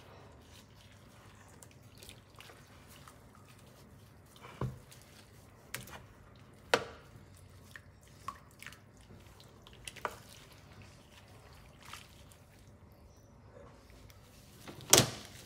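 Pink hair-dye liquid dripping and splashing in a plastic bowl as a wig is lifted, squeezed and pushed back down, in scattered short wet sounds. The loudest comes near the end.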